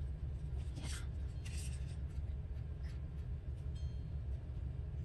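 Paper scraps being handled on a work surface: a few faint, short rustles and scrapes of paper over a steady low hum.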